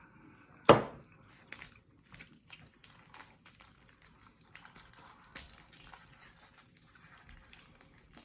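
A loud sharp knock just under a second in, then a run of crinkling and crackling as a Kit Kat wrapper is opened.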